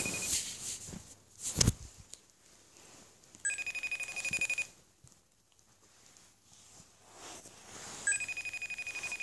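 An outgoing call ringing through a phone's speaker: a rapidly pulsing electronic ring in bursts of about a second, repeating roughly every four and a half seconds. The call goes unanswered. A brief rustle of the phone being handled comes about one and a half seconds in.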